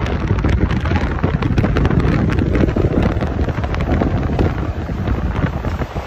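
Wind buffeting the microphone over the low rumble of semi trucks passing close by.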